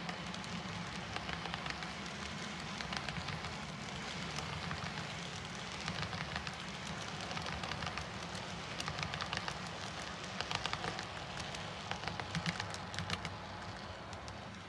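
HO scale freight cars (covered hoppers) rolling along model track: a steady rolling rumble with a rapid, irregular patter of wheel clicks, easing off near the end as the train passes.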